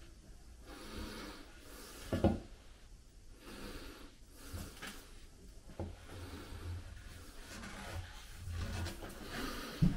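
A marker rubbing and scratching on a glazed porcelain tile as it traces around a roll of painter's tape used as a circle template, with a soft knock about two seconds in as the tape roll is set down on the tile.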